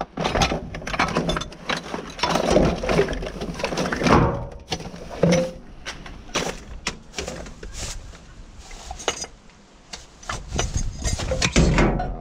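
Rubbish being rummaged through in a bin: irregular knocks, clunks and rustling as items are moved, with occasional clinks of jars and pans.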